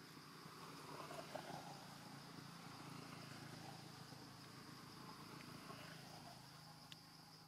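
Faint outdoor ambience of insects droning at one steady high pitch, with a low hum underneath.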